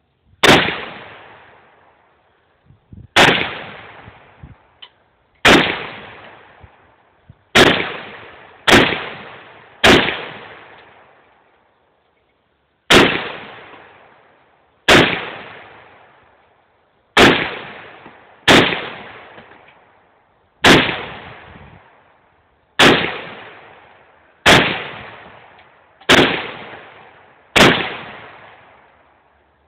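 Romanian WASR-10/63 AK-47-clone rifle in 7.62x39 fired in single shots, fifteen in all, spaced unevenly from about one to three seconds apart. Each sharp crack is followed by a long decaying echo.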